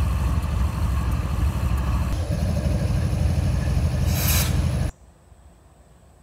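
Diesel freight locomotive passing close, its engine running with a heavy, even throb over rail noise, and a brief hiss about four seconds in. The sound cuts off suddenly about five seconds in, leaving only a faint distant rumble.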